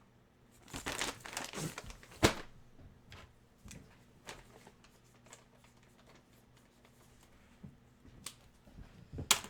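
Packaging crinkling and rustling as a hockey jersey is handled, with one sharp snap a little over two seconds in, then only faint scattered rustles.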